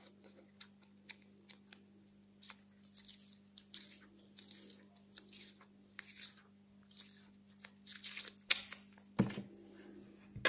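Paper masking tape being peeled off its roll in short rasping rips and wound around a thin plastic tube. The sharpest rips come about eight and a half and nine seconds in.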